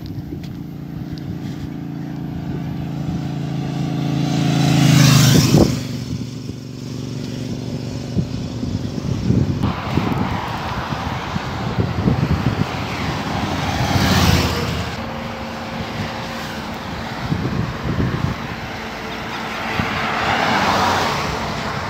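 Highway traffic passing close to the microphone. A vehicle with a steady engine hum draws near and passes about five seconds in, its pitch dropping sharply as it goes by. Two more vehicles rush past, one around fourteen seconds and a car near the end.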